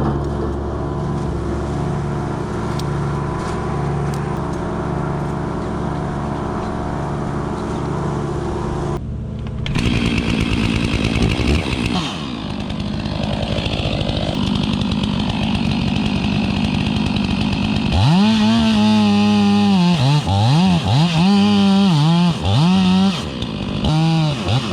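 Chainsaw engine running steadily, with a brief break about a third of the way in. In the last quarter it is revved hard several times, its pitch dropping and climbing with each blip of the throttle.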